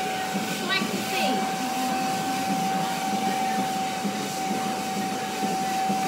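Vacuum cleaner running steadily with a constant high whine, its hose nozzle being drawn through an Alaskan malamute's thick coat to suck out loose fur.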